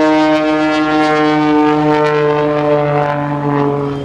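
Fire truck air horn blowing one long, loud, steady blast. Its pitch sags a little near the end, and it cuts off abruptly at the end.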